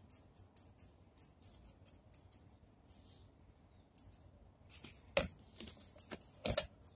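Paintbrush bristles dabbing and stroking paint stripper onto a pair of metal scissors in a plastic tub, a quick run of short, hissy scratches. Near the end come a few sharp knocks as the brush and scissors hit the side of the tub.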